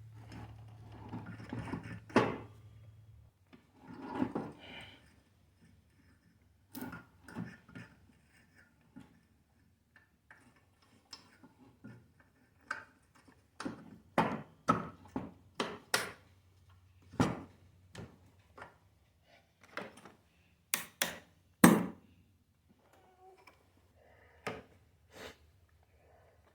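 Irregular knocks, taps and clanks of tools and metal parts being handled while refitting a power wheelchair's drive motor, the loudest a sharp knock late on.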